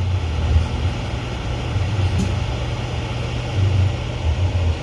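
Steady low rumble with a faint hiss above it, and a single faint click about two seconds in.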